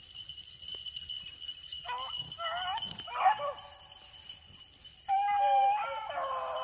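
Beagles baying as they run a rabbit track: a few short bawls about two to three seconds in, then a longer drawn-out bawl from about five seconds on, over a steady high-pitched whine.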